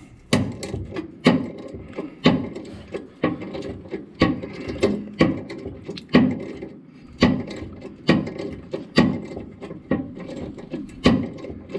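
Hand ratcheting tap handle clicking in short repeated strokes, about one a second, each with a brief scrape, as a tap cuts threads in a drilled-out hole in a steel bracket.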